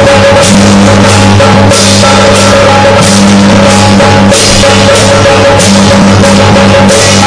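Loud drum-and-cymbal music over a steady low drone, with a cymbal crash roughly every second and a half.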